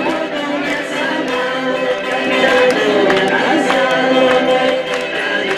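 Live music from a small band of guitars and other plucked stringed instruments, with singing.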